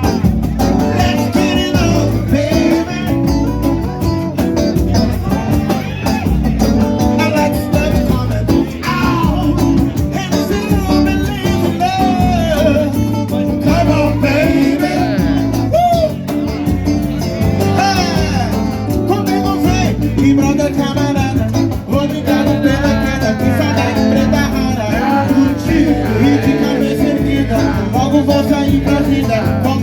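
Live band music with a steady beat, guitar and a singing voice.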